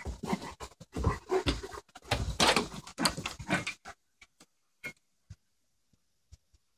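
Two German Shepherds play-fighting, with scuffling, panting and dog noises for about four seconds. After that there are only a few scattered short clicks and taps.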